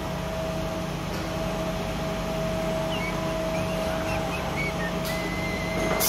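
Steady hum of a robot-tended CNC lathe cell, with faint short rising and falling servo whines as the industrial robot arm swings toward the lathe, then a sudden sharp pneumatic hiss right at the end.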